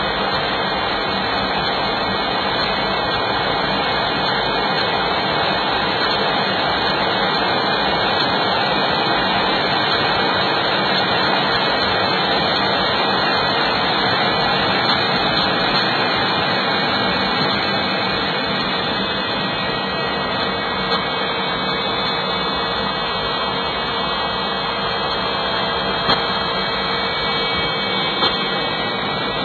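Steady jet engine and airflow noise heard inside a jet fighter's cockpit in flight, with a few faint ticks in the last third.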